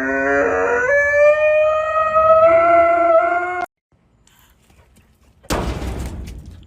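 A dog howling in one long, drawn-out howl that rises slightly in pitch and is cut off abruptly after about three and a half seconds. About two seconds later comes a sudden crash-like burst of noise that fades over about a second.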